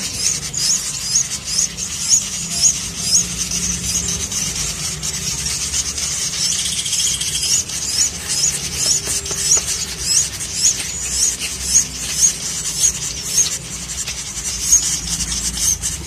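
Nestling birds begging for food: a thin, high chirp repeated every half second or so.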